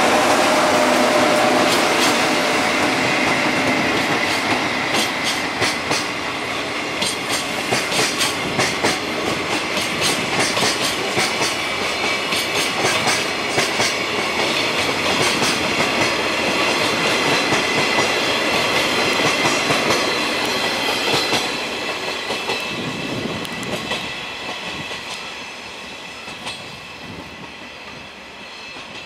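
Freight train pulling out of a yard, hauled by an EF66 electric locomotive, its wagons' wheels clacking over rail joints in a quickening rhythm, with a steady high whine. The sound fades as the last wagons move away near the end.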